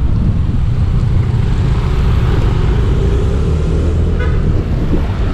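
Yamaha Aerox 155 scooter on the move: a steady low rumble of engine and wind on the riding microphone, with a short horn toot about four seconds in.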